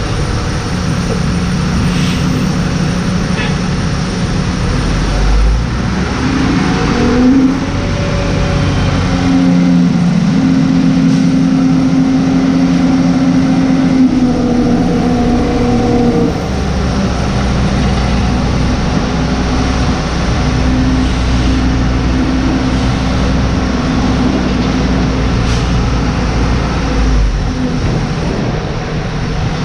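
Towbarless pushback tug's engine running under load as it pushes a Boeing 787-9 back, a loud steady drone whose tones rise and shift around the middle, with a deep rumble setting in about halfway through.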